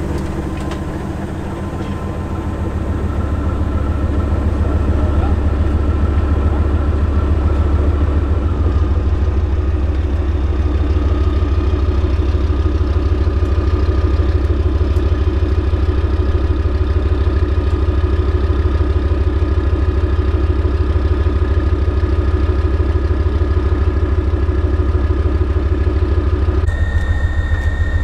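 Bergepanzer 2 recovery tank's ten-cylinder diesel engine running steadily, with a faint high whine over it; the engine grows louder about three seconds in. Near the end the sound shifts and a thin steady high tone comes in.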